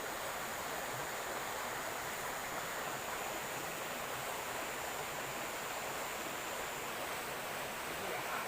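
River water flowing steadily, an even rushing noise. A thin high steady tone runs above it and stops about seven seconds in.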